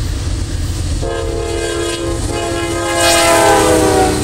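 Freight diesel locomotive's air horn sounding a multi-note chord, starting about a second in and held, louder from about three seconds in, its pitch dropping slightly as the lead locomotive passes just before the horn stops; the engines rumble low underneath.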